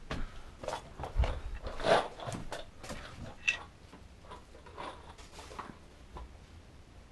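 Handling noises: a scatter of short knocks, clicks and rustles as tools and plastic are picked up from a shelf and moved around. They are loudest in the first two seconds and fainter after that.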